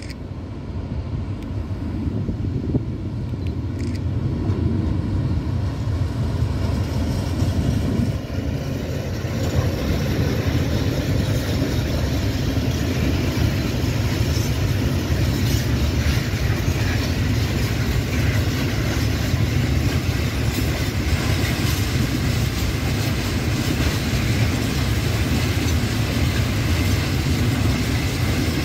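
Freight train hauled by an ÖBB Rh 1293 electric locomotive passing, growing louder over the first eight to ten seconds as it approaches, then the steady rumble of its long string of tank wagons rolling by on the rails.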